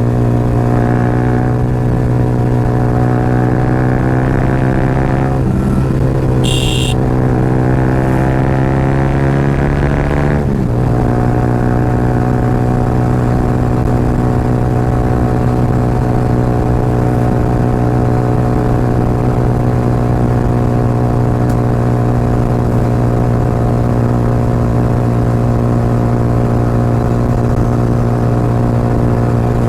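Yamaha R15's single-cylinder engine through an aftermarket Akrapovic exhaust, running loud and steady at highway speed. The pitch dips briefly twice, about five and ten seconds in, then holds steady.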